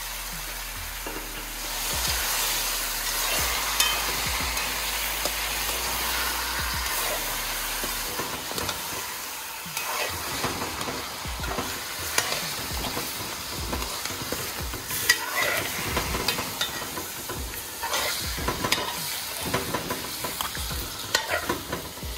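Oxtail pieces sizzling as they sear in oil and caramelized brown sugar in a metal pot, the browning stage of a Caribbean stew. From about eight seconds in, a metal spoon scrapes and knocks against the pot as the meat is turned.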